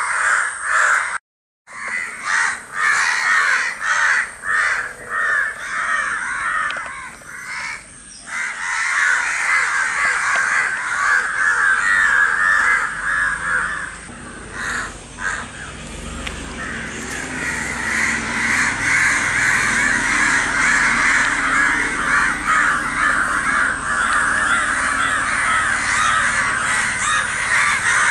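Many crows cawing together in a dense, continuous outcry of overlapping calls, raised over an injured crow lying on the ground. The sound cuts out completely for a moment a little over a second in.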